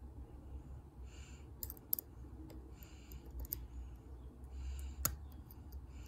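Faint sharp clicks and soft scratchy scraping from a dimple pick and tension tool working the pins of a brass Burg-Wächter Boccia 450 dimple padlock; a click marks a pin setting as the core turns a little.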